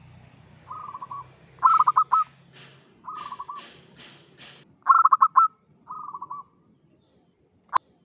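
Zebra dove (perkutut) cooing: repeated short phrases of rapid rolling coos, some louder and some softer. Short hissy bursts fall between the phrases, and there is a single sharp click near the end.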